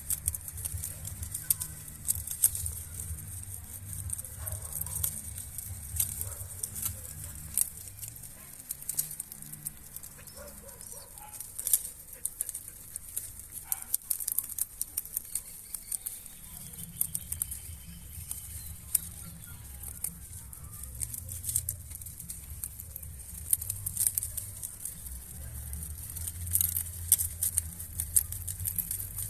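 Rabbits chewing and tearing banana leaf: many quick, crisp crunching and rustling clicks, irregular throughout, over a low rumble.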